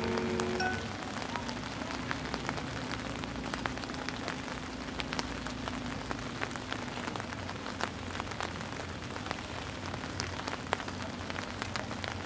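Rain falling on umbrellas: a steady hiss with many scattered sharp drop taps. A marching band's held chord cuts off about a second in.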